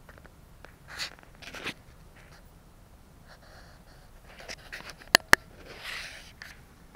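Handling noise as a handheld camera is moved about: soft rustles and light clicks, with two sharp clicks in quick succession about five seconds in.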